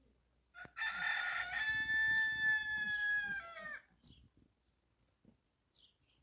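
Rooster crowing once: a single crow of about three seconds that starts under a second in and falls in pitch at its end. A few faint high bird chirps follow.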